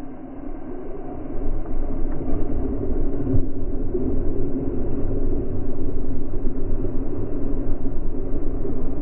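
Surf and water rushing past a kayak hull as it runs in through breaking waves: a steady, low rushing noise that grows louder over the first two seconds or so.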